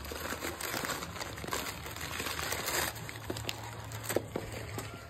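Crumpled brown kraft packing paper crinkling and rustling as hands pull it out of a gift box, in a continuous run of crackles with one sharper crackle near the end.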